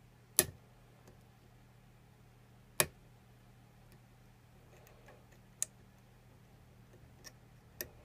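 A few sharp, isolated metallic clicks from a hook pick and tension wrench working the pin tumblers of a six-pin First Watch padlock. The loudest comes about half a second in, another near three seconds, then fainter ones, over a steady low hum.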